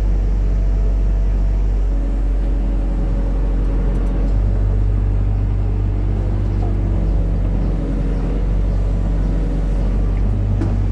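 Hitachi excavator's diesel engine running steadily while it works, its low note changing about four seconds in, with a few light knocks near the end.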